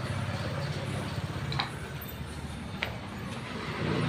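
Two sharp metallic clicks from hand tools working on a scooter's radiator water pump, over a steady low rumble.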